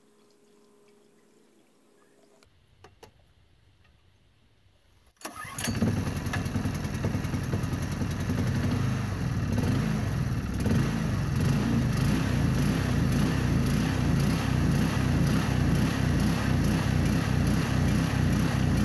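Near silence for about five seconds. Then the gasoline engine of a Powerhorse 3-inch full trash pump starts abruptly and runs steadily at speed, the pump freshly primed with water.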